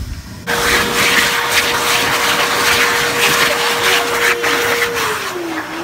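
Wall-mounted stainless steel electric hand dryer blowing on hands: a loud rush of air with a steady motor whine that starts about half a second in. Near the end the whine dips in pitch and climbs back.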